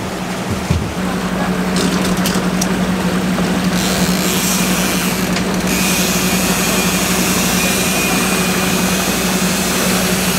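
A 250-horsepower outboard motor running steadily with a constant low drone while the boat trolls. Water and wind rush over it, louder from about four seconds in.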